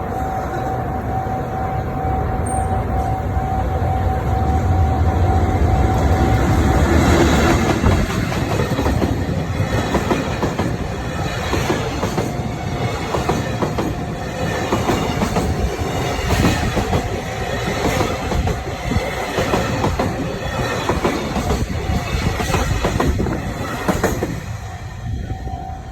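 A freight train passing over a level crossing. A heavy low rumble builds over the first several seconds, then wagon wheels clack over the rail joints in a long, regular run that fades near the end. A steady crossing warning bell sounds at the start and is heard again at the very end.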